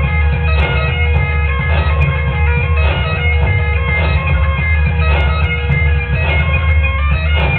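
Recorded bagpipe rock music: bagpipes playing a melody over a steady drone, backed by guitar and drums with an even beat.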